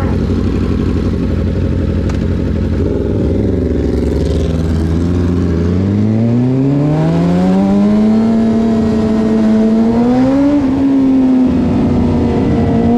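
Suzuki GSX-R 600's inline-four engine idling at a traffic light, then pulling away about halfway through with its pitch rising smoothly as it accelerates. Later it rises briefly again, dips a little as it shifts up, and then runs steadily.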